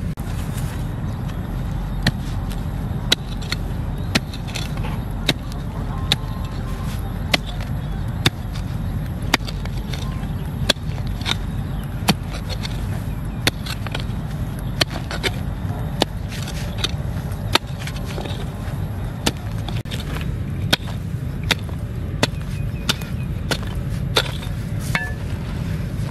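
A small short-handled hoe chopping into red soil, giving sharp, irregular strikes about once a second over a steady low rumble.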